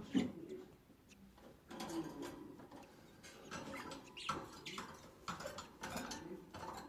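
Budgerigars chirping in short squeaky calls, mixed with scuffling rustles.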